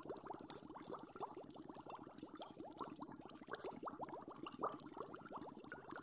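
Water boiling: a dense, unbroken stream of small bubbles bursting, each a short upward-sliding blip.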